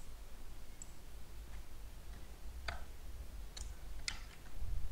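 Three sharp clicks of a computer mouse, the last two about half a second apart, over a faint low hum.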